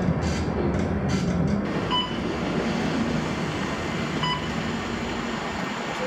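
Bus interior noise: a steady engine and road rumble while riding, with two short electronic beeps, one about two seconds in and one about four seconds in.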